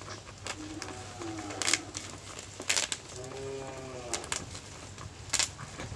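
Plastic bubble wrap crinkling as it is peeled off the chair parts by hand, with three sharp crackles. A short bird call, rising then falling in pitch, about halfway through.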